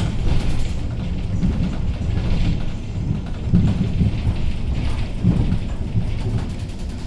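Hyundai New Super Aero City high-floor bus (2015 model) running with a deep, rough rumble and irregular louder surges, the strange noise this bus is making.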